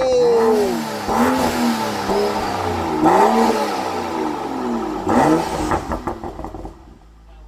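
BMW M235i's turbocharged 3.0-litre straight-six, breathing through an aftermarket Burger Motorsports intake, revving up and down in several short blips. Near the end comes a quick run of crackles and pops in the exhaust, and then the sound fades.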